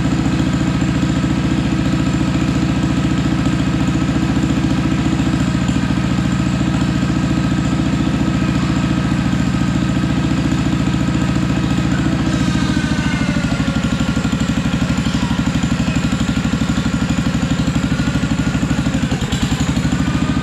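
Kohler K-series single-cylinder engine on a log splitter running steadily at idle after being fixed from a no-spark condition, warming up before an oil change. Its pitch shifts slightly about two-thirds of the way through, with a brief dip near the end.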